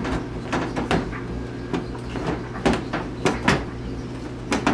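Irregular hard-plastic clicks and knocks from a 2013 Chevrolet Impala headlight assembly being pushed and worked into its seat against the body and bumper trim.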